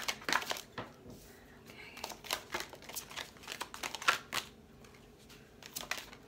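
A deck of tarot cards being shuffled by hand: an irregular run of short snapping and rustling sounds of cards slapping and sliding together.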